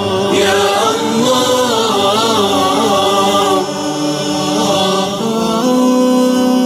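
Voices singing an Islamic devotional song (nasheed) in chorus, with wavering, ornamented lines that settle into a long held note about five and a half seconds in.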